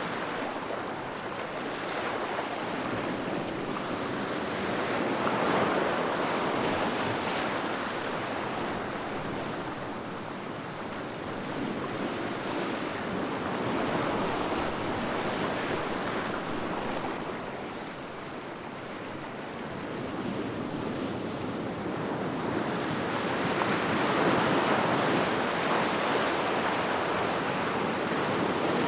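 Sea waves breaking and washing ashore, the surf swelling and ebbing about every ten seconds.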